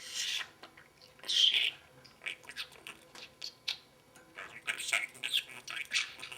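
Pet parrot vocalising in short, high-pitched bursts of squawks and chatter, loudest about a second and a half in and again around five seconds in.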